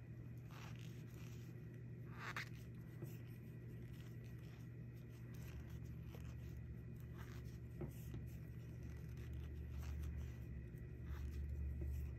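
Knitting needles and yarn being worked stitch by stitch: faint scratches and soft ticks as the needles slide and tap, over a steady low hum.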